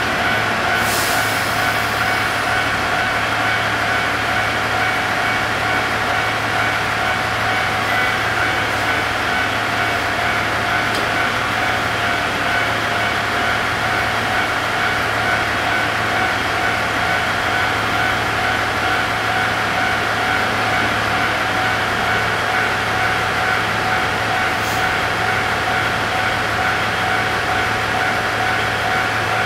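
JR KiHa 110-series diesel railcar idling while standing at the platform: a steady, unchanging engine drone with held higher whining tones over it.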